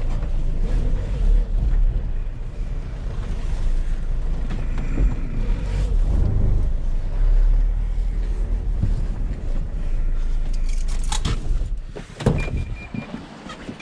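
A vehicle's low rumble heard from inside the cabin, with a few clunks about eleven seconds in; the rumble drops away about a second later.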